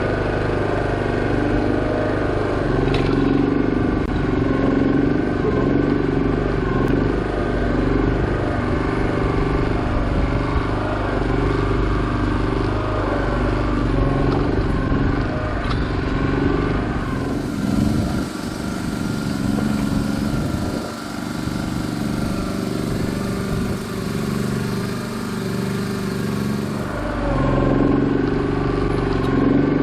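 Komatsu PC01 micro excavator's small engine running steadily. Its sound changes between about 17 and 27 seconds, with less deep rumble and more hiss.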